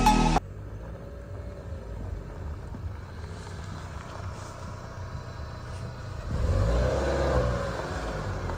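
Car driving, a steady low rumble that swells louder about two-thirds of the way through, as on acceleration.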